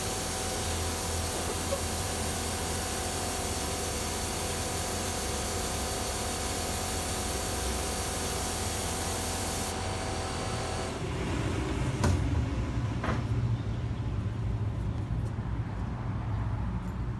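Compressed-air glaze spray gun hissing steadily as glaze is sprayed onto a vase, shutting off about eleven seconds in. A low steady hum and a couple of knocks follow.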